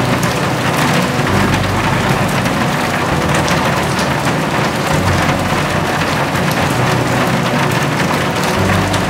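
Steady rain falling, an even hiss with many scattered drop ticks.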